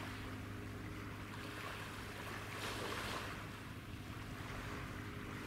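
Low steady drone of ship engines heard across the water from a large ferry and the tug working at her bow, with a soft hiss of water wash and wind on the microphone that rises and falls.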